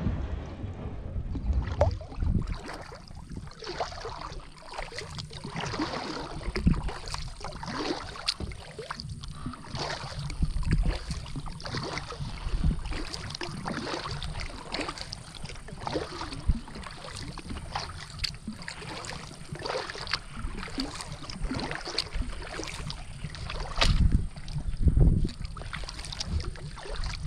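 Kayak paddle dipping and pulling through calm water in an irregular run of strokes, with splashes and drips from the blades. A few louder low bumps come through near the end.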